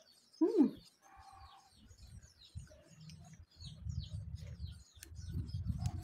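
Small birds chirping steadily in the background, with close low chewing and handling noise from eating a ripe mango building from about three and a half seconds in. About half a second in comes one brief loud falling cry, the loudest sound.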